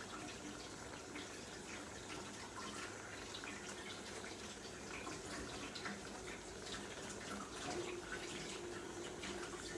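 Pots on the stovetop: spaghetti boiling in a pot of water and an aubergine and tomato sauce simmering in a pan, a steady bubbling full of small pops and crackles. A faint steady hum comes in near the end.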